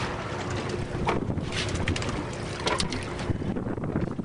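Boat engine running steadily at sea, with wind on the microphone and a few short knocks and clicks from handling gear on deck.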